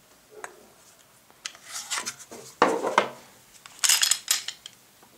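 A Glock 17 pistol being handled to unload it: the magazine is released and the slide is pulled back, giving a run of sharp clicks and scraping slides of metal on polymer. The loudest clatter of clicks comes about four seconds in.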